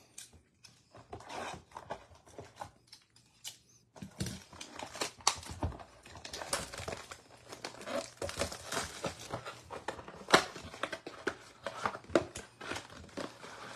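Wrapping and cardboard of a 2022 Topps Heritage High baseball-card blaster box being torn and crinkled as it is opened: irregular crackling and tearing, sparse at first and busier from about four seconds in.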